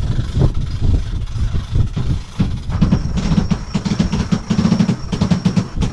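Cabin-top sailboat winch working as the mainsail is hoisted, with irregular knocks at first, then from a little under halfway a fast run of clicking over a steady hum.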